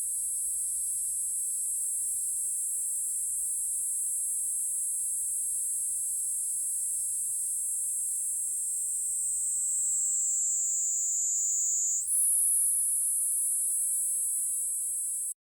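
Kuroiwa niinii cicada (Platypleura kuroiwae) singing: a continuous, shrill, high buzz. About nine seconds in it slides gradually lower, breaks for an instant, resumes higher and a little louder, and then cuts off suddenly near the end.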